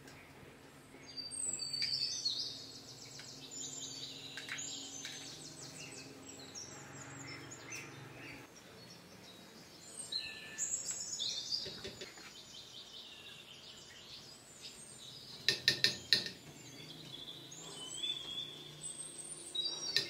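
Small birds singing in repeated high, fluttering trills in several spells, with a quick run of four or five sharp clinks about three-quarters of the way through, the loudest sounds here, like utensils knocking on dishes.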